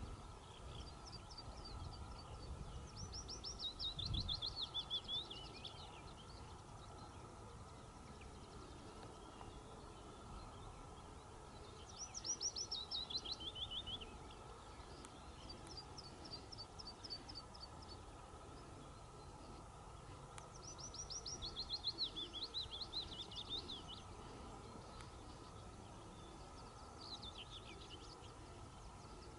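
A songbird singing short, high, trilled phrases that fall in pitch, repeated several times with pauses between them. Under the song is a faint steady hum, with some low rumble in the first few seconds.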